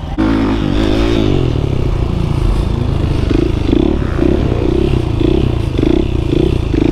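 Supermoto motorcycle engine running under way, heard from the rider's own on-board camera, its note swelling and falling about twice a second.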